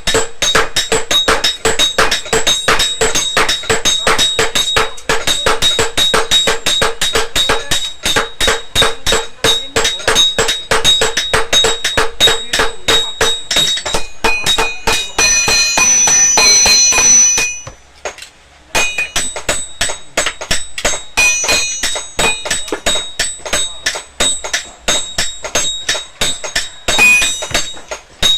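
Hammer blows ringing on steel and anvil in a quick, steady rhythm of about four strikes a second as a tajak blade is forged. Midway the strikes give way for a few seconds to a denser metallic noise, then a short pause, and the hammering resumes.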